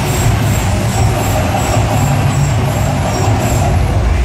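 Mirage hotel's artificial volcano erupting: a loud, steady low rumble as gas flames shoot from the rock.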